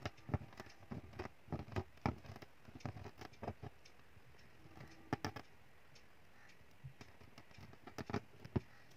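Aari hook needle punching down through taut fabric and drawing zari thread back up in chain stitch, making faint, irregular clicks and taps.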